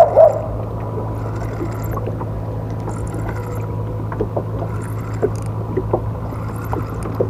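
A steady low engine hum, with a few light clicks scattered over it.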